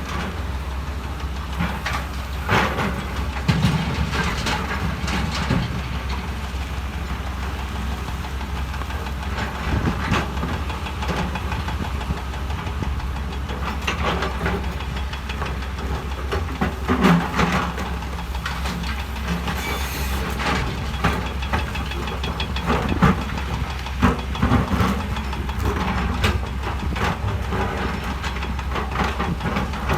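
Heavy earthmoving machinery at work: diesel engines running with a steady low rumble under frequent sharp metallic clanks and knocks, a few of them louder in the second half.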